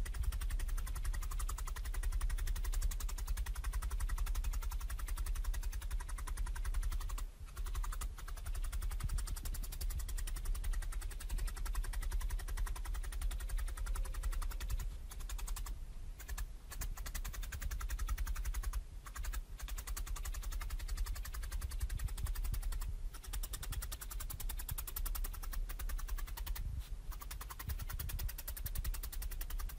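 Felting needle stabbing again and again through white wool roving into a foam mat to attach it, sped up into a dense, rapid run of pokes with a few short pauses.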